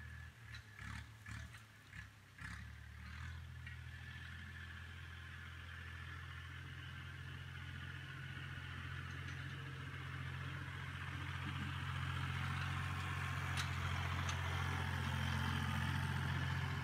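Massey Ferguson tractor's engine running steadily as it drags a box blade over the dirt, growing louder as it comes close. A few short knocks sound in the first couple of seconds.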